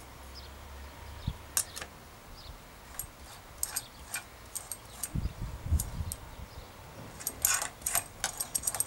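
Light metallic clicks and clinks as a cone spanner works the adjustable-side cone and lock nut on a Sturmey-Archer AW three-speed hub's axle, with a few dull knocks about five seconds in and a quicker run of clicks near the end.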